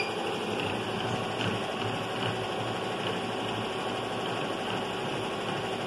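Industrial embroidery machine running with a steady mechanical hum as its needle-case shift (vaivén) motor moves the needle case to needle 15.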